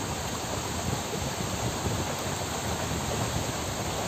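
Steady rush of a shallow river running fast over rocky riffles.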